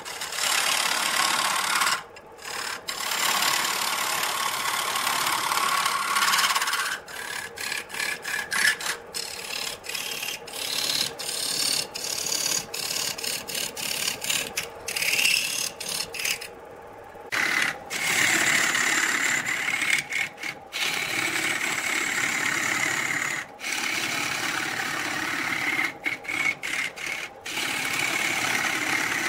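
Lathe turning tool cutting a spinning wood blank: a scraping hiss of shavings being peeled off, which stops and starts many times as the tool lifts away and comes back, with two longer pauses, one about two seconds in and one past the middle.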